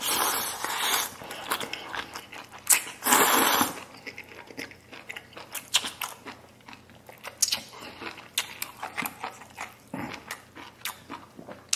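A person slurping in a mouthful of spicy noodles, two loud sucking rushes (one at the start and one about three seconds in), then chewing close to the microphone with scattered soft wet clicks.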